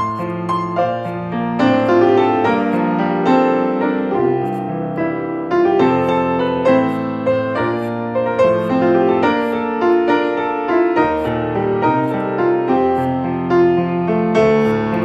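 Piano music: a steady run of notes over held chords.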